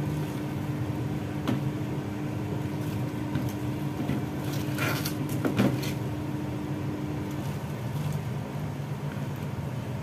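Soft rustles and a few light clicks as bok choy leaves are pushed down into a steel pot of boiling soup. Under them runs a steady low hum, with a faint tone that drops out about three-quarters of the way in.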